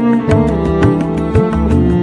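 Instrumental music with quick plucked notes over sustained tones and a deep, sliding bass.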